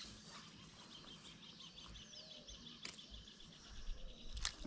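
Faint outdoor ambience with a bird's rapid trill of short, evenly repeated high notes and a brief gliding call. Two sharp clicks, one about three seconds in and one near the end.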